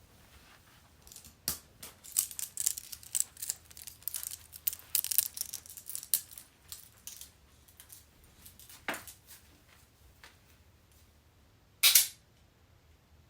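Metal handcuffs clicking and jingling: a dense run of quick metallic clicks and rattles that thins out into scattered clicks, then one short, sharp, loud burst near the end.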